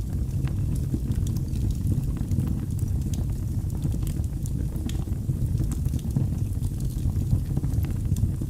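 Wood fire burning in a fireplace: a steady low rumble of flames with scattered small crackles and pops.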